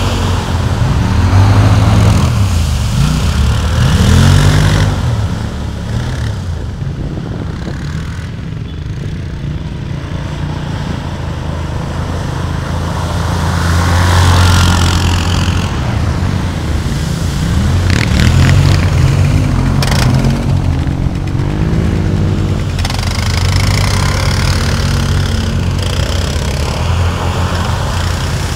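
Quad bike engines revving up and down as they drive through shallow muddy water, with splashing spray. The engine pitch rises and falls repeatedly, loudest a couple of seconds in and again about halfway through.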